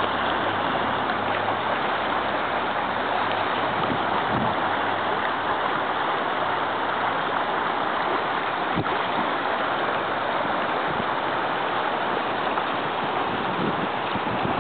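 Fast-flowing creek water rushing steadily.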